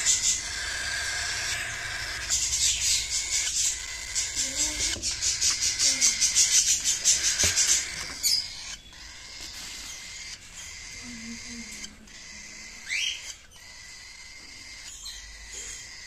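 Cockatiel chicks calling with a raspy, high-pitched, rapidly pulsing chitter of several pulses a second, loudest in the first half. It then fades to a softer hiss with a couple of short rising chirps.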